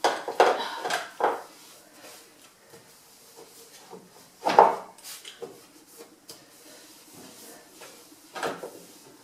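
Kitchen cupboard being wiped out with a cloth: a cluster of knocks and clatters at the start, a louder knock about four and a half seconds in and another near the end, with faint rubbing between them.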